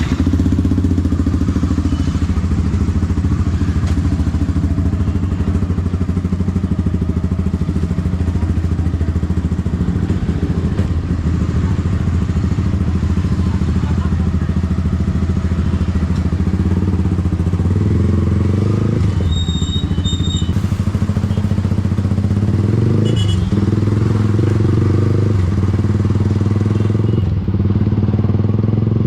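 Yamaha R15 V3's single-cylinder engine running under way through an aftermarket exhaust, a steady drone that rises and falls in pitch several times past the middle as the throttle is opened and closed.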